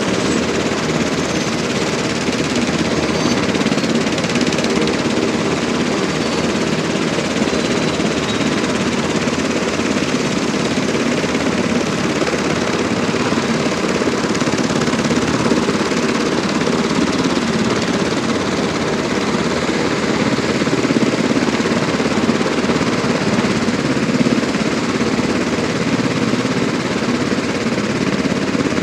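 UH-60 Black Hawk helicopter running on the ground, its twin turboshaft engines and spinning main and tail rotors making a steady, loud drone with a fast beating pulse.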